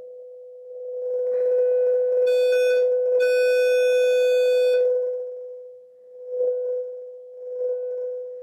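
Sine-wave test tone from a signal generator, played through the NAD 3020i's power-amplifier stage with the preamp bypassed and heard from small bench speakers. The steady mid-pitched tone swells much louder about a second in and takes on a buzzy edge of overtones at its loudest, then eases back down with two short swells near the end. It is free of hiss: the hiss lies in the preamp stage.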